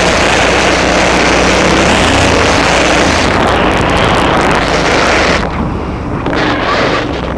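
KTM LC8 V-twin motorcycle engine running under load, with heavy wind rush over the microphone. About five and a half seconds in, the sound drops in level and loses its hiss as the engine eases off.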